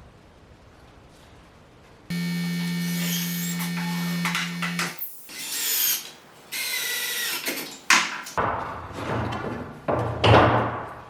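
Small power tool's motor running in bursts: it starts suddenly about two seconds in and runs steadily for about three seconds, then several shorter runs follow, with a sharp knock in between.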